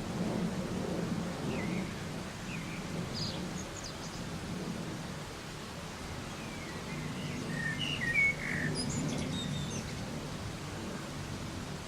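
Soft, steady rain with a low rumble underneath, while birds call in short chirps now and then, most often between about seven and nine seconds in.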